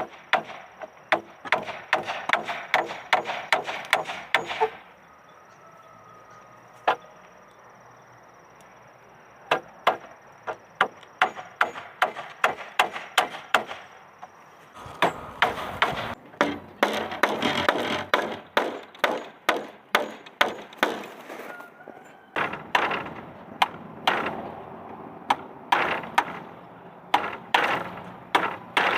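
A tool striking wood over and over, about two to three blows a second, in runs of several seconds with a pause of a few seconds about five seconds in.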